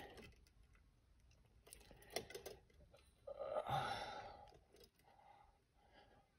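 Faint small metal clicks and scraping of a storm door wind chain and its coil spring being worked by hand onto the header bracket, with a louder rustle lasting about a second a little past the middle.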